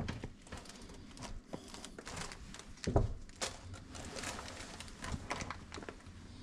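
Cloth and mesh bags rustling as belongings are handled and rummaged through, with a dull thump about three seconds in.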